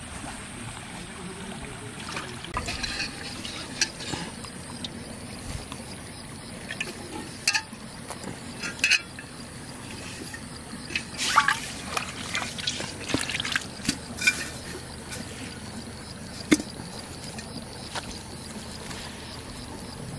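Water splashing and trickling: irregular sharp wet splashes and slaps, thickest about eleven to fourteen seconds in, over a faint steady trickle.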